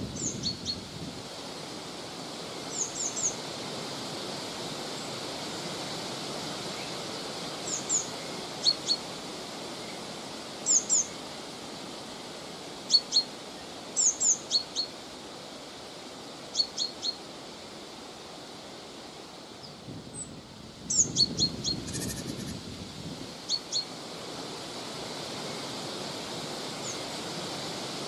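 Steady wind rushing through grass and trees, with small birds giving short high-pitched calls in quick clusters every second or two. A stronger gust comes about three quarters of the way through.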